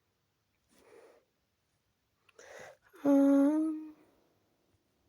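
A person breathing out twice, then a short hummed "hmm" lasting under a second that steps slightly up in pitch near its end.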